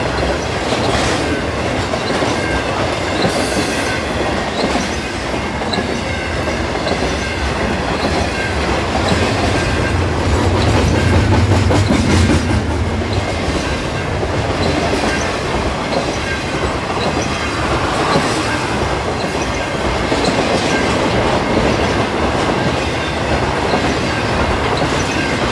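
Freight train cars rolling past, wheels clacking over rail joints with a faint high wheel squeal.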